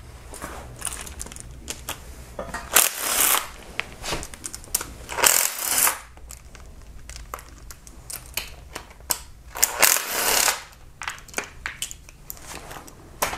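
Ratchet wrench loosening the three timing-chain guide bolts on a Kia 2.4 GDI engine: three short bursts of rapid clicking, with scattered light metal clinks between them.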